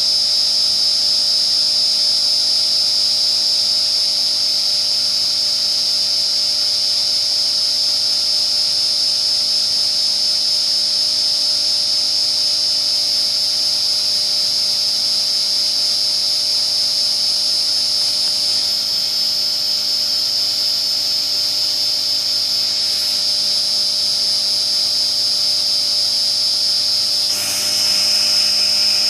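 Novakon Torus Pro CNC mill's spindle running at 6,000 RPM while a tiny Harvey Tool end mill cuts slots, with an air blast hissing to clear the chips. The sound is steady and gets slightly louder near the end.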